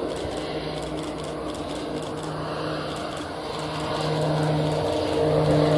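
Turboprop-converted Douglas DC-3 (DC-3T) on its takeoff roll at takeoff power: a steady propeller drone with a low hum and higher tones above it, growing louder over the second half as the aircraft comes closer.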